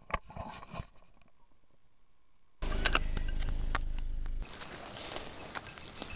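Handling noise from a handheld camera: soft knocks and clicks, then a sudden louder low rumble with sharp clicks for about two seconds, ending in quieter rustling with scattered ticks.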